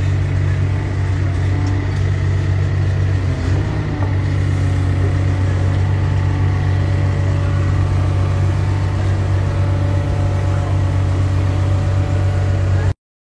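An excavator's diesel engine runs steadily close by as its arm lowers a strapped burial vault into the grave. The sound cuts off abruptly near the end.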